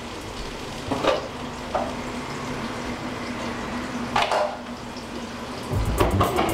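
Lamb chops sizzling in olive oil in a frying pan, with a few short knocks and clatters of pans and a cabinet door about one, two and four seconds in.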